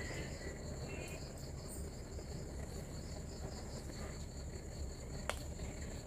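Night-time insect chorus: crickets trilling steadily at two high pitches over a low background rumble, with a single sharp click about five seconds in.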